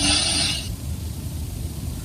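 A person snoring: a short breathy hiss, then a low, rough rattle that runs on steadily.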